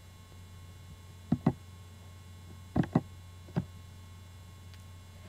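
Five short, sharp clicks at the computer: two quick pairs and then a single one, as the presentation slides are advanced. A steady low electrical hum runs under them.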